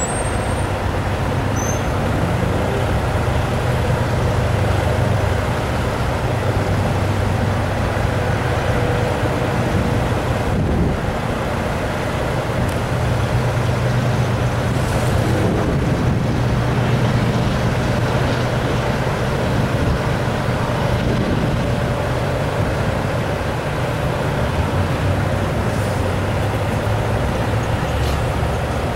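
Steady low rumble of heavy engines mixed with traffic noise, holding even throughout with no single event standing out.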